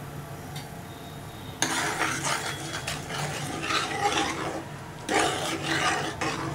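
A spoon stirring simmering dal-and-spinach kuzhambu in a pot, scraping and clinking against the pot. It starts about one and a half seconds in and pauses briefly near five seconds.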